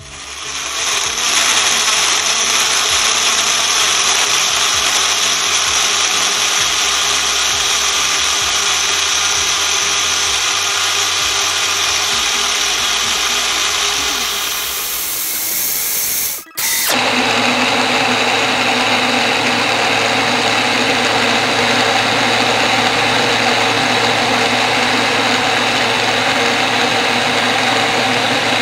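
Kajafa personal blender's 400-watt motor running at full speed, grinding carrot pieces with water, spinning up over the first second or so. About two-thirds of the way through the sound dips and cuts out for an instant, then the blender runs steadily again.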